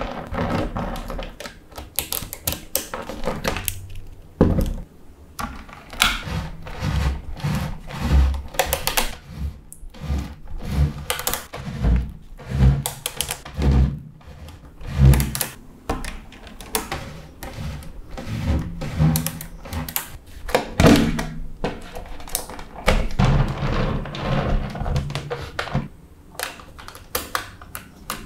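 Small magnetic balls clicking and snapping together again and again at an irregular pace, mixed with heavier knocks as pieces are set down.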